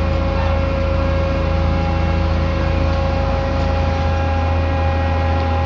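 Heavy diesel machinery running steadily, a constant low engine hum with a few fixed tones above it.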